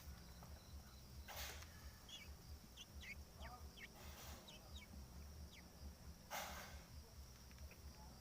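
Faint bird calls: a scattering of short, quick chirps and sweeping notes in the middle few seconds, with two brief hissing bursts and a steady low hum underneath.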